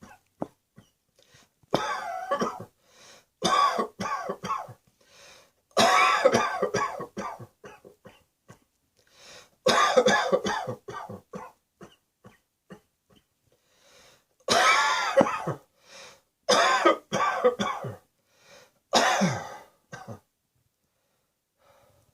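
A person coughing in about seven fits, each a quick run of several coughs, with short pauses between fits.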